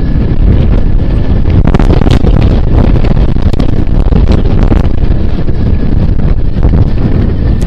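Heavy wind buffeting the microphone while riding a bike, with a few short clicks and rattles about two to five seconds in.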